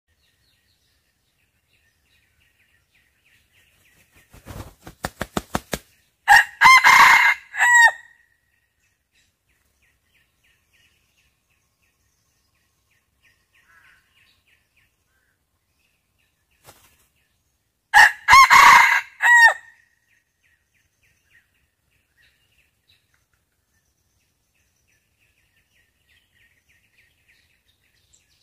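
Rooster flapping its wings in a quickening run of beats, then crowing; about ten seconds later it crows a second time. Small birds chirp faintly in the background.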